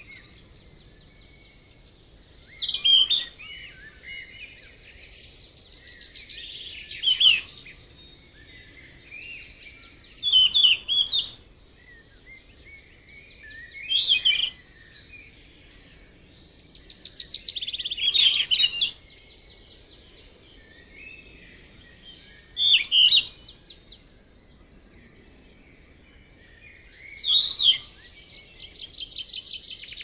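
Yellow-rumped flycatcher singing: short, loud phrases repeated about every four seconds, over a steady background of fainter, higher chirping and trilling.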